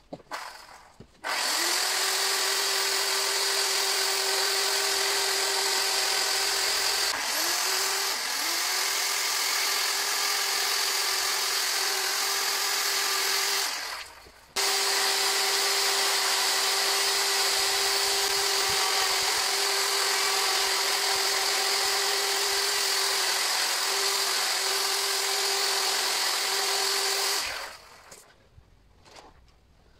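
Electric chainsaw carving a wooden statue, running at a steady whine in two long runs with a short break about halfway. Its pitch dips briefly twice as the chain bites into the wood, and each run starts and stops abruptly with no idle in between.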